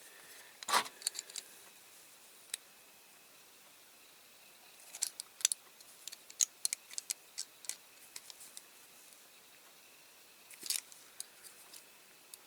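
Small metal hand tool clicking and tapping against the twisted metal axle and wheels of a die-cast toy lorry as it is worked straight: scattered sharp clicks, the loudest about a second in, a quick run of them around the middle and another short cluster near the end.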